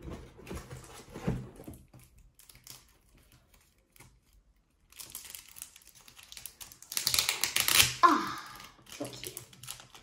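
Foil trading-card packet being handled and torn open: a few light handling clicks, then a dense crackling, crinkling burst lasting about a second, about seven seconds in.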